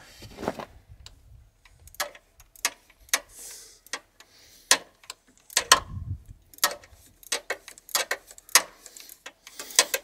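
Ratchet wrench clicking in short, irregular strokes as a nut is worked on, with a dull knock about six seconds in.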